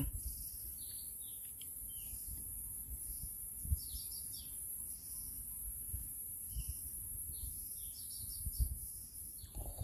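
Small birds chirping on and off, in short high falling notes, sometimes several in quick succession. Under them runs a steady high hiss, with a single low thump a little under four seconds in.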